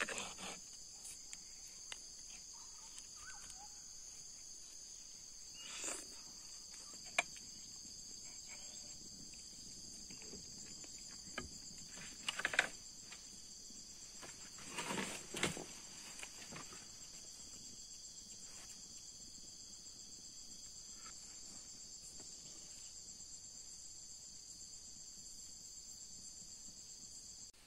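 Steady chirring of insects in two unbroken high-pitched bands, with a few soft knocks and rustles of someone moving about among wooden logs.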